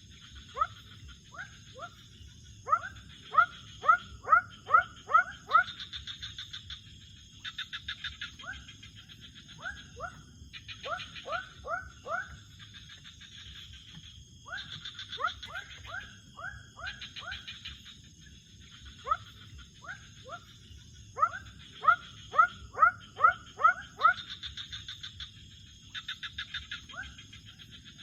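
Night animal chorus: short rising calls repeated in quick runs of five to eight, alternating with pulsing buzzy trills, over a steady high insect drone and a low steady rush.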